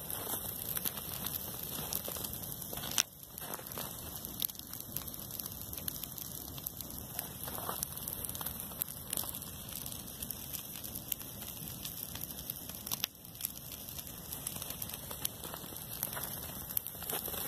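Dry grass burning: a steady rushing hiss of flames with dense crackling throughout, and a sharp pop about three seconds in and another near thirteen seconds.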